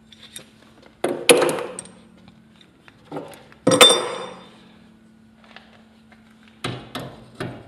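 Metal parts clanking: two loud clinks with a short ringing tail, then a few lighter knocks near the end, over a faint steady hum.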